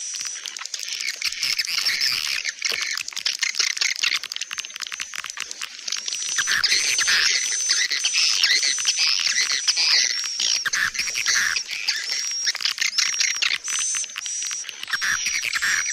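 Recorded swiftlet call track used to lure birds into a swiftlet nest house: dense twittering chatter of swiftlets. From about six seconds in it is joined by a run of short, high, evenly repeated piping notes, roughly two a second.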